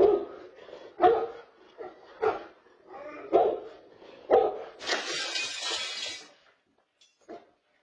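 A dog barking, five sharp barks about a second apart, followed by about a second of harsh hissing noise.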